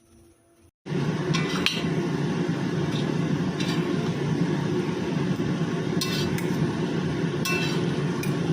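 Flat rice noodles being stir-fried in a wok over a steady sizzle, with the metal spatula clinking and scraping against the pan every second or two. It begins abruptly about a second in.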